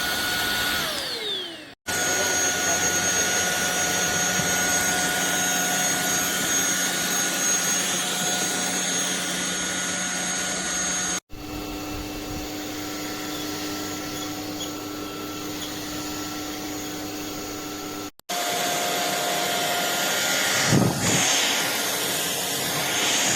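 Anyson cordless stick vacuum's motor running steadily, a hum with fixed tones over a rush of air. Near the start its pitch falls as the motor spins down. The sound cuts off abruptly three times, about 2, 11 and 18 seconds in, each time resuming with a slightly different set of tones.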